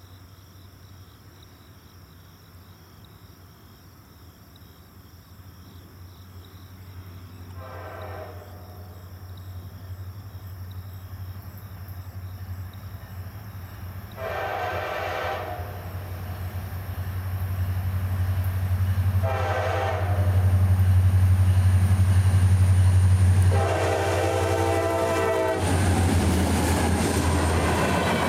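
CSX diesel freight locomotive approaching and sounding its horn in four separate blasts, the second and fourth longest, over an engine drone that grows steadily louder. Near the end the locomotive passes and the rushing clatter of covered hopper cars' wheels on the rails takes over.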